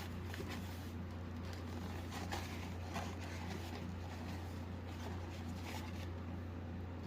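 Faint scratching and a few light clicks of handling the smoke alarm and its packaging, over a steady low electrical hum.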